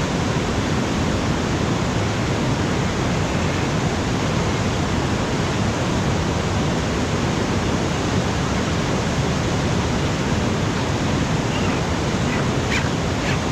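Steady, even rushing noise at a constant level, with a few faint short ticks near the end.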